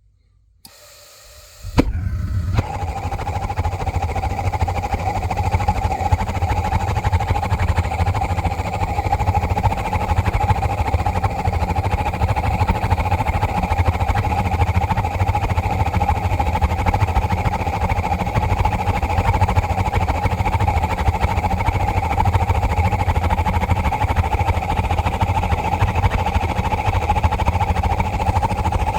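Gas water heater main burner lighting with a sudden onset about two seconds in, then burning loudly and steadily with a deep rumble and a steady droning tone. The noise comes with an abnormally big flame that the owner says makes the pipe inside turn red hot; the heater had been flashing a low-thermopile-voltage code.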